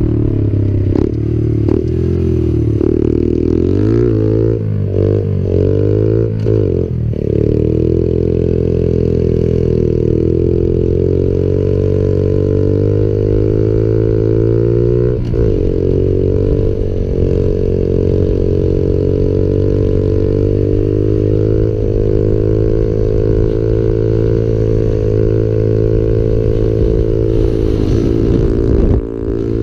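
Small 50cc Dax-style motorcycle engine (Zhenhua/Skyteam clone) revving hard, pulling a wheelie up through second, third and fourth gear. Its pitch climbs and dips several times in the first few seconds as the throttle is worked, drops at a shift about halfway, then holds steady at high revs before easing off briefly near the end.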